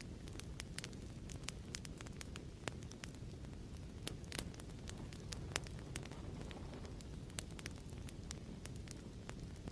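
Crackling fireplace: a steady low rumble of burning wood with frequent sharp pops and crackles at irregular intervals.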